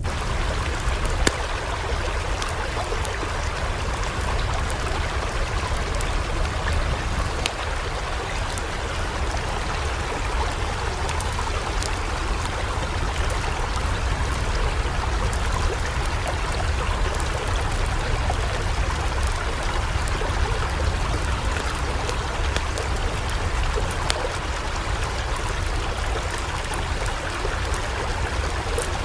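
Swollen floodwater rushing steadily, a continuous even wash of flowing water.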